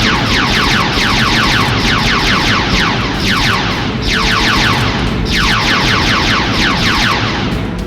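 Rapid-fire sci-fi laser-gun sound effects: a fast stream of short falling "pew" zaps in several long bursts, one after another without a break.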